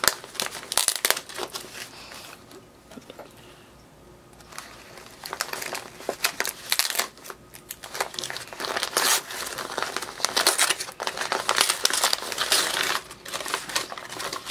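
Metallic foil gift-wrapping paper crinkling and tearing as a package is unwrapped by hand, in irregular handfuls with a quieter lull about two seconds in. Near the end, tissue paper rustles as it is pulled back from the contents.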